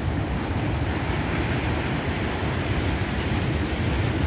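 Surf breaking and washing over rocky shore ledges, a steady rush of white water, with wind rumbling on the microphone.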